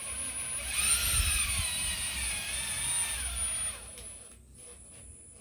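An engine drone that swells about a second in, wavers slowly in pitch and fades away near the end, with a thin steady high whine above it.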